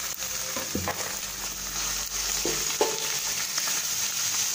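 Minced chicken breast sizzling in hot oil with onion and garlic in a steel wok, stirred with a metal spatula: a steady frying hiss.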